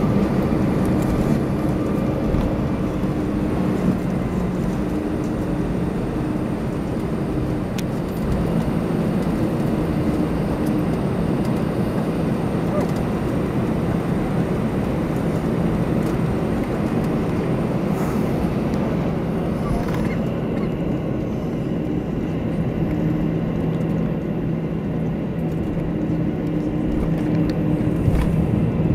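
Airbus A321 jet engines running at low thrust while the airliner taxis, heard inside the passenger cabin as a steady hum with low droning tones that fade in and out.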